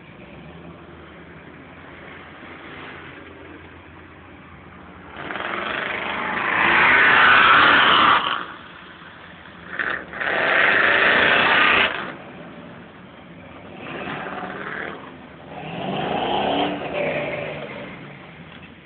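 Off-road trucks' engines revving hard in four surges, the loudest about six to eight seconds in, as they push through deep mud, over a steady engine sound underneath.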